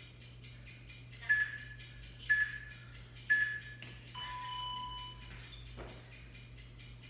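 Interval workout timer ticking, then three short high beeps a second apart and one longer, lower beep about four seconds in: the countdown into the next exercise interval. A faint thud follows as a body drops onto the floor.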